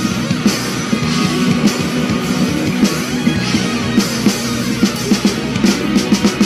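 Live rock band playing an instrumental intro on electric guitars, bass guitar and drums, with a quick run of drum hits near the end.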